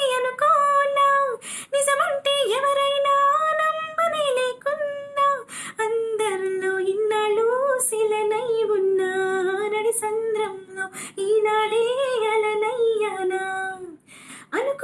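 A high female voice singing a melody solo, holding and bending long notes with short breath pauses between phrases.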